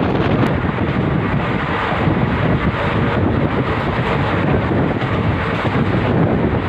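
Loud, steady wind buffeting the microphone over a continuous low rumble.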